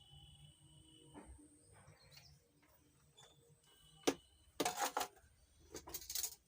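Small repair-bench handling sounds while a wire jumper is fitted across a burnt copper trace on an amplifier's driver board: a sharp click about four seconds in, then two short scraping bursts near the end.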